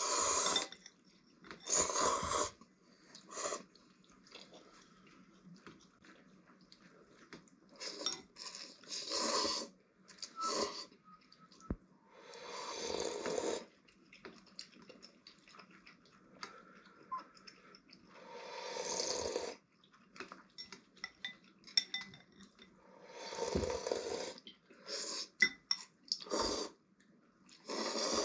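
Instant ramen noodles and broth being slurped from bowls, in noisy bursts about a second long every few seconds, with occasional clicks of chopsticks against ceramic bowls.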